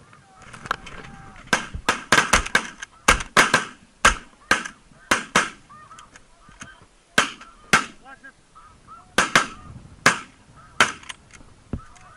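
Snow goose calls: a rapid, overlapping run of short, shrill honks, about two a second.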